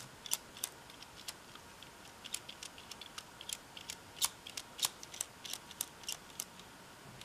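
Small plastic clicks and light rattles of a LEGO Technic model being handled, its steering gears and wheels turned by hand; the clicks come irregularly, a few a second, with the sharpest pair around the middle.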